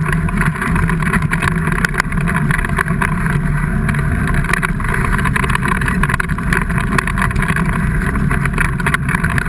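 Off-road vehicle engine running steadily, with scattered clicks and knocks over it.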